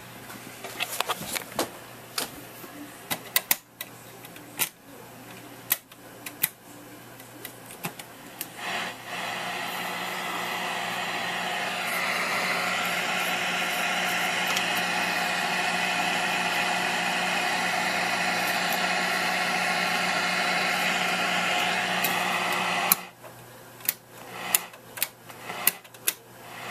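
Steady hissing static with a buzzing hum from a vintage tube TV's speaker, tuned to no signal. It comes on about nine seconds in and cuts off abruptly about fourteen seconds later, with scattered clicks and knocks of handling the set before and after.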